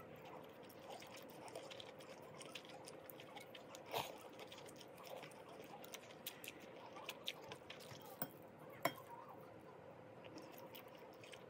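Soft, sticky squishing of dressed noodles being lifted and stirred with a metal spoon and chopsticks in a glass bowl, with light clinks of the cutlery against the glass, the sharpest about four seconds in and near nine seconds.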